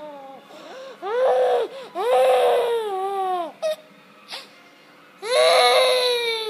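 Young boy crying hard: three drawn-out wails, each sliding down in pitch, with short pauses between.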